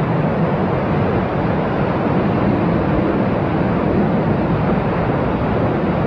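Sea surf washing around rocks: a steady rush of water with no distinct breaks.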